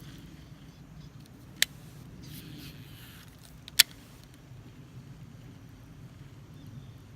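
Two sharp clicks of a fishing reel about two seconds apart, with a brief swish between them, over a low steady outdoor rumble. The pattern fits a cast: the bail clicks open, the lure flies out, and the bail snaps shut.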